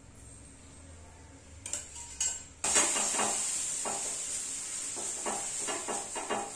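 Two light metal clinks, then about two and a half seconds in a sudden steady hissing sizzle as cold water hits the hot dosa tawa, with rubbing strokes as a tissue wipes the pan. The sizzle is the sign that the tawa is hot enough for the next dosa.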